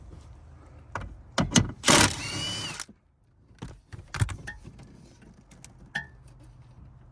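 Handling noises from work under a car's dashboard: scattered clicks and knocks, a loud scraping rustle about two seconds in with a short falling squeak, then a few light taps.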